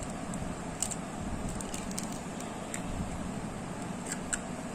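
A few faint, sharp clicks of an egg being cracked and its shell handled over the mixing bowl, over a steady background hum.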